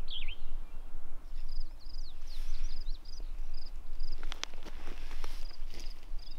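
Songbirds calling: a quick warbled phrase right at the start, then short high chirps repeated irregularly, about two a second at times. A few sharp clicks come near the middle, over a steady low rumble.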